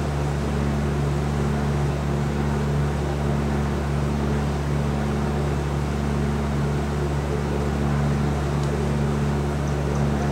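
A steady low hum at a constant pitch, loud and unchanging, with a faint hiss above it.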